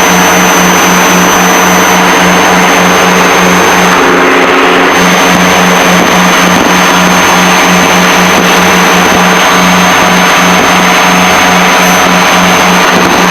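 Cabin noise of a Piper Seneca's twin piston engines and propellers at full takeoff power in the climb-out, a loud steady drone with a regular throb.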